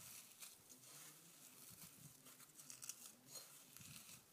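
Faint, irregular crunching and rustling of dry, stale bread being crushed into crumbs by hand in a glass bowl.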